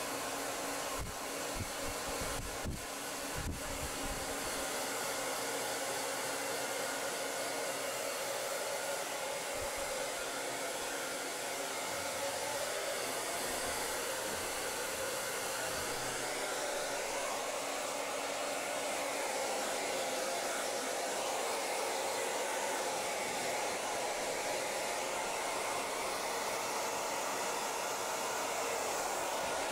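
Handheld hair dryer blowing steadily as it dries a wet dog's coat. A few low thumps sound in the first few seconds.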